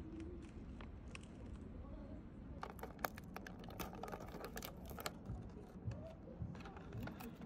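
Crinkly plastic snack bag of rice crackers being handled and rummaged in. There are two clusters of sharp crackling, one in the middle and a shorter one near the end.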